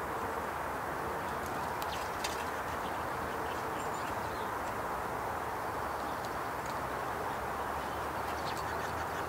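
Steady rushing outdoor background noise, with scattered light ticks and clicks from birds pecking seed on a plastic feeder tray.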